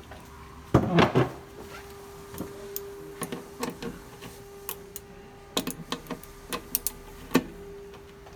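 A screwdriver engaging and turning the metal cam-lock fittings in the top of a modular bookcase: a knock about a second in, then a scattering of short sharp clicks and taps as each cam is locked, over a faint steady hum.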